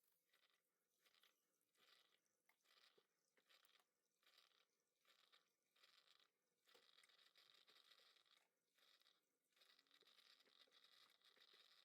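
Near silence, with only a very faint hiss.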